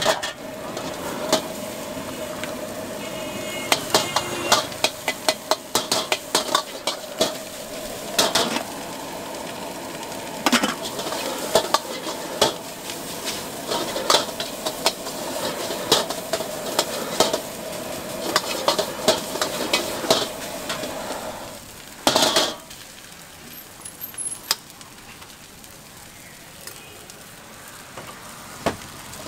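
A metal ladle and spatula scraping and clanking against a carbon-steel wok while egg fried rice sizzles, over a steady hum. About 22 s in, the hum stops and the clanking thins out, leaving a quieter sizzle with occasional taps.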